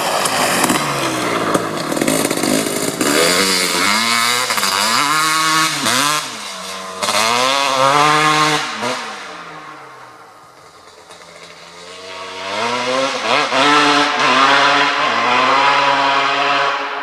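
Kawasaki KX250 two-stroke engine, with an FMF Gnarly pipe and Pro Circuit Shorty R-304 silencer, revving up and down over and over. About ten seconds in it drops away and goes quieter, then climbs again and holds a steady high pitch before fading near the end.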